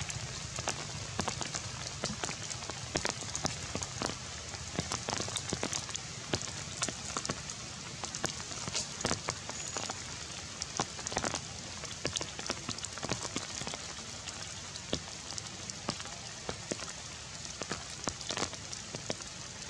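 Steady rain falling on tree leaves: an even hiss with many irregular drops ticking and pattering.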